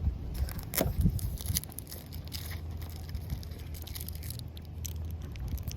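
Protective plastic film being peeled off a new side marker lamp: scattered crackles and scraping clicks, busiest in the first couple of seconds. A low steady hum runs underneath.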